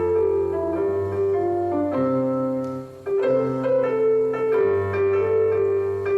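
Piano introduction to a song: sustained chords that change about once a second, with a simple melody above them. The phrase starts over about halfway through.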